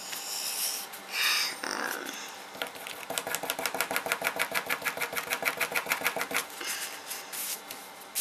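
Rapid scratching on a cotton T-shirt's printed front as it is scraped to distress it: a fast, even run of about ten strokes a second lasting some three seconds, after a few brief rustles of the fabric.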